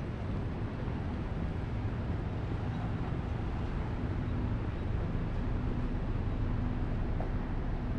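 Steady low rumble of city street traffic, with a low hum that grows a little stronger about three seconds in.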